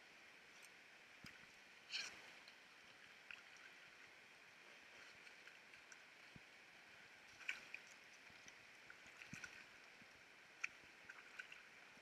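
Faint river water lapping and gurgling right at the surface, with small splashes and clicks now and then, a sharp one about two seconds in.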